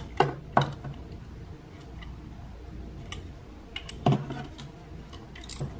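A few sharp metallic clicks from a hand tool working the ignition-coil hold-down bolts on a VW 1.4 L turbo engine: two just after the start, one about four seconds in and one near the end, with fainter ticks between.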